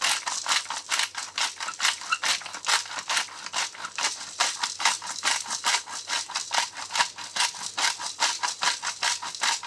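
Container of cracked pepper shaken rapidly over a bowl, an even dry rattle of about five shakes a second.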